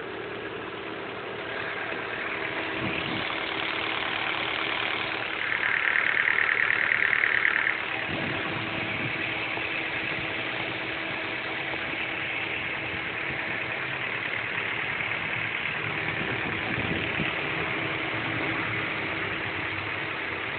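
Honda Prelude's H22 four-cylinder engine idling with a ticking noise whose cause the owner doesn't know. About five and a half seconds in, a louder, higher-pitched rattle comes in for about two seconds, then stops.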